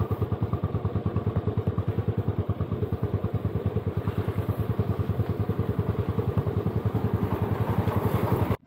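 Royal Enfield Bullet's single-cylinder engine running at a steady low speed, its exhaust beats evenly spaced at about ten a second. The sound cuts off abruptly near the end.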